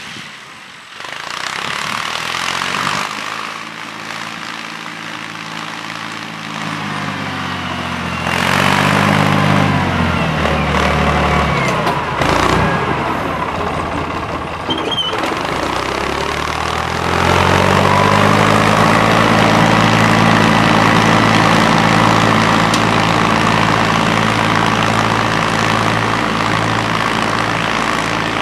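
Farm tractor engine revving up and down several times as it sets off, then running steadily and louder while it tows a pulverizer through the worked soil.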